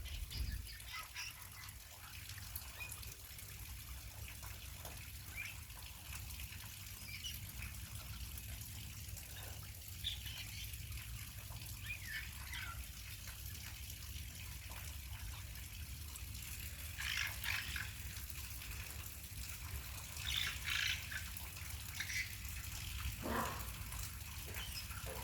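Young grey parrots giving scattered short squeaks and chirps over a faint steady hiss of running or spraying water. The calls come more often in the second half.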